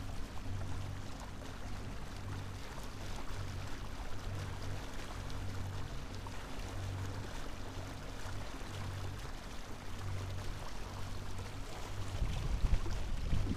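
A sailing yacht's engine runs steadily under way, a low hum that swells and fades about once a second, with water rushing along the hull.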